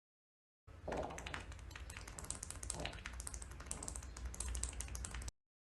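Bubbly fart sound effect: a long sputtering run of rapid pops over a low rumble, lasting about four and a half seconds and cutting off abruptly.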